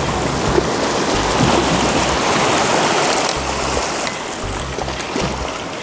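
Background music with a stepping bass line over a steady rushing noise, louder in the first half, from shore water or wind on the microphone.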